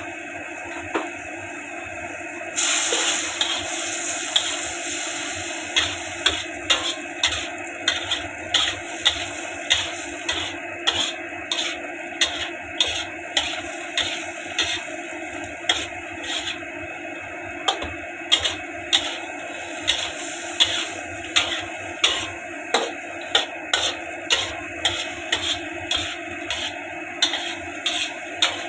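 Spatula stirring noodles in a hot frying pan: a steady sizzle with the spatula knocking and scraping against the pan about twice a second. The sizzle grows louder a few seconds in.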